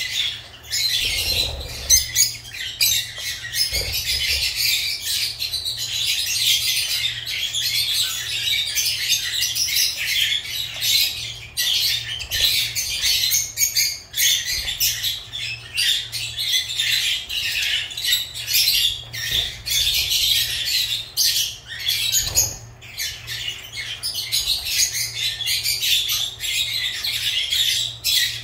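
Lovebirds chattering and squawking in a steady stream of rapid, high-pitched chirps, with only short pauses.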